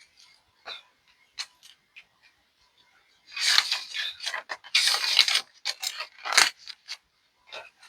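Paper banknotes rustling and shuffling as cash is handled and counted, loudest in two stretches in the middle, followed by a few sharp clicks.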